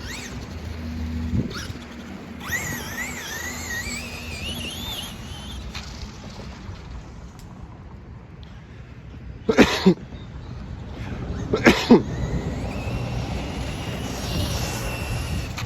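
Electric motor of a radio-controlled car whining, its pitch rising and wavering as it is throttled, then holding a steadier high whine near the end. Two loud short sounds, about two seconds apart, come midway.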